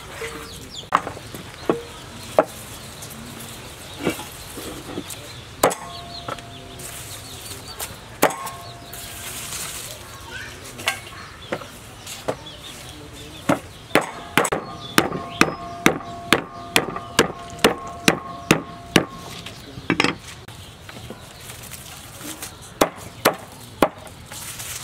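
Cleaver chopping lemongrass stalks on a round wooden chopping board. There are scattered single chops, then a fast run of two to three strikes a second in the middle with a ringing tone under it, then a few more chops near the end.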